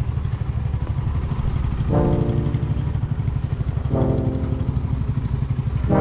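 Single-cylinder adventure motorcycle engine running with a steady low rumble. Over it, pitched music notes strike and fade about two and four seconds in, and again near the end.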